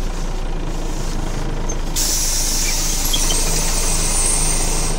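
Scania OmniCity bus with its DSC9 diesel engine running steadily; about two seconds in, a sudden hiss of compressed air from the bus's air system starts and holds.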